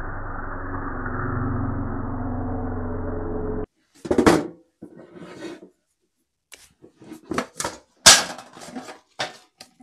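Random orbital sander with a mesh sanding disc running on a hardwood board, sounding dull, then cutting off suddenly a little over a third of the way in. It is followed by a string of sharp knocks and clatters as a metal first-aid tin is set down and opened on the workbench, the loudest near the end.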